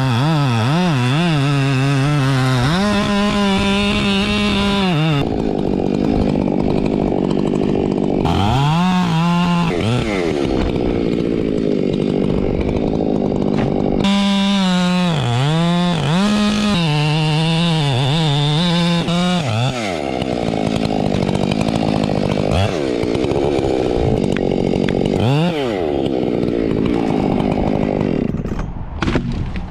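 Chainsaw cutting tree limbs and trunk, its engine pitch rising and falling again and again as the throttle is worked, with a few steady stretches.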